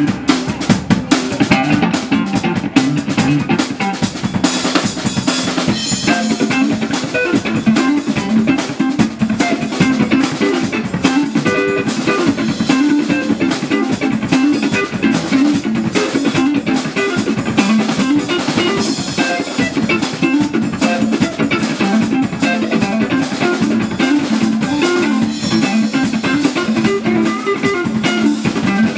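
Live blues band playing an instrumental passage: drum kit with kick drum and rimshots under electric guitar and bass guitar, with no singing.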